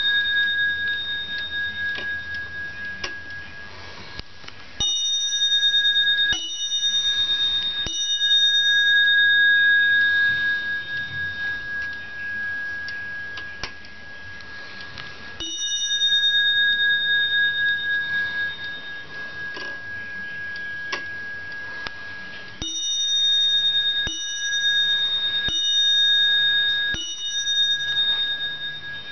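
The bell of a 1974 Dutch oak Zaanse wall clock with an 8-day United Clock Works movement, struck by its hammer. There are about eight single strikes, each left ringing out with a clear bell tone. Some come in quick runs about a second and a half apart, others several seconds apart.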